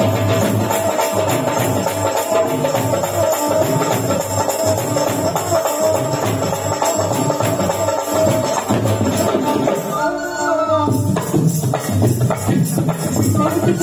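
Live Punjabi folk music: a dhol drum and jingling hand percussion keep a fast, steady beat under sustained melody, with a voice singing around ten seconds in.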